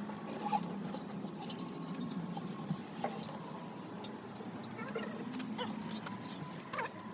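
Metal hand tools clinking, knocking and scraping against a tractor tyre and its rim as the tyre is changed by hand: scattered light clinks and knocks, with a few short squeaks, over a steady low hum.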